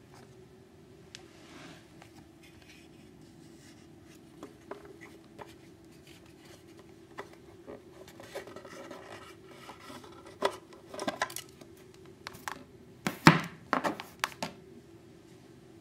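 Hands handling a homemade wooden mouse-trap box and its clear plastic cover: scattered small clicks and scrapes, then a run of louder knocks and clatter in the last few seconds, the loudest a single sharp knock. A faint steady hum lies under it all.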